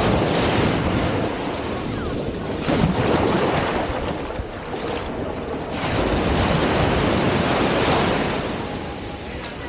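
Ocean surf washing onto a beach, swelling and ebbing a few times, with wind buffeting the microphone.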